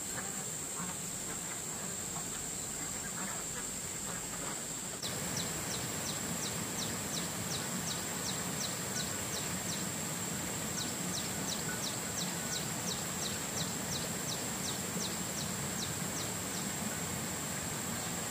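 Ducks quacking for the first few seconds. After a sudden change, a rapid series of short, high, falling chirps comes at about three a second, in two runs with a brief gap, over a steady high-pitched whine.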